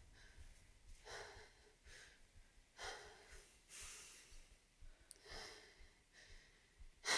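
Faint, slow breathing: four soft breaths spaced a second or two apart.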